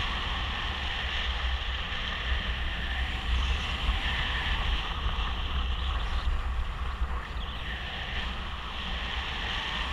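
Steady airflow rushing over an action camera's microphone on a paraglider in flight: a low rumble with a band of hiss above it.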